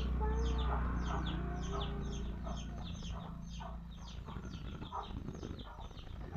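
Chickens clucking, with short high chirps repeating about three times a second over a steady low rumble.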